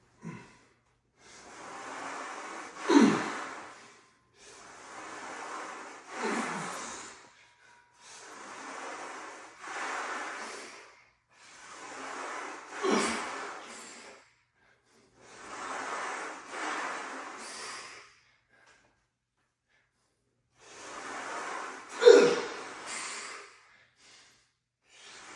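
A man breathing hard from exertion through a set of Smith machine presses: a long, noisy breath about every three seconds, several ending in a short falling grunt. There is a pause of about two seconds late on.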